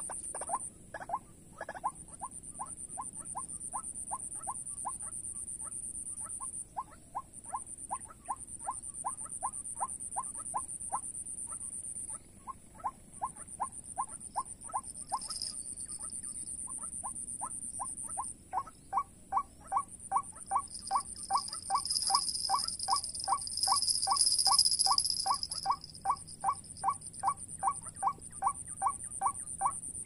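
White-breasted waterhen call played as an MP3 trapping lure: a long run of short, evenly spaced 'kwak' notes, about three or four a second, louder in the second half. Behind it a steady high shrill buzz cuts out and resumes several times.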